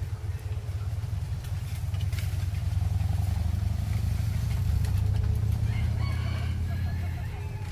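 Wind buffeting the microphone with a steady low rumble that swells in the middle. About six seconds in, a rooster crows once, faint under the wind.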